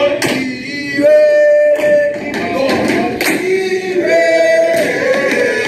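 Background music: voices singing long held notes over sharp percussion hits.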